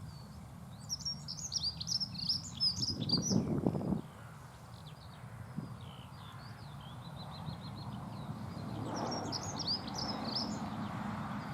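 Dunnock singing: two quick, high, warbling song phrases of about two to three seconds each, with fainter notes between them. A low rumble sounds under the end of the first phrase.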